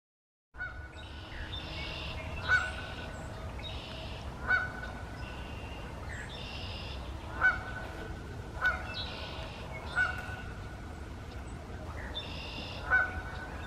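Birds calling: short, sharp calls every second or two, mixed with longer, harsher calls, over a steady low rumble.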